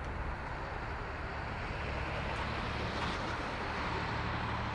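A Boeing 737-800's twin CFM56-7B turbofans at take-off climb thrust as the airliner climbs away. The jet noise is steady, with no clear pitch.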